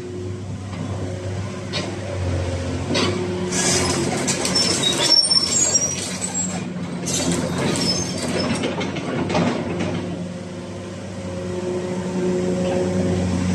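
Caterpillar 336D crawler excavator's diesel engine running steadily, with a stretch of metallic clatter and high squeals from about three and a half to eight seconds in.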